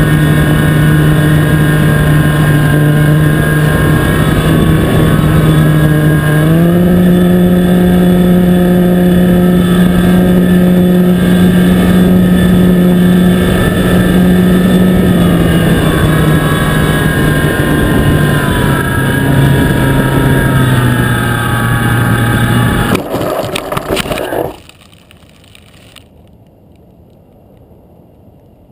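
Radio-controlled T-28 Trojan model plane's motor and propeller buzzing in low flight, the pitch stepping up about six seconds in and easing down later as the throttle changes. Near the end a burst of knocks as the plane hits the grass and flips over, then the motor stops.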